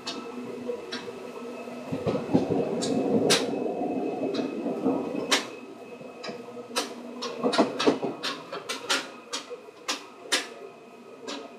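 Running sound of a Seibu 2000 series electric train: a steady hum at several pitches with many irregular sharp clicks and knocks, and a louder rush of noise from about two to five and a half seconds in.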